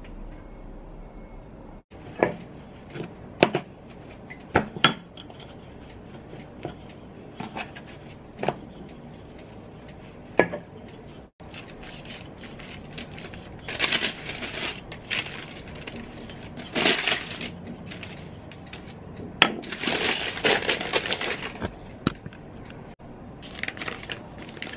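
Kitchen work on pizza dough: a scattering of sharp knocks and clinks of utensils and dishes on the counter, then several longer scraping, rustling bursts about halfway through, with a few more sharp clicks.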